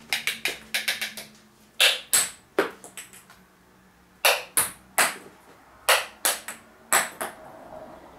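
Table tennis ball bouncing and being tapped: a dozen or more sharp, ringing clicks in irregular groups, dying away near the end.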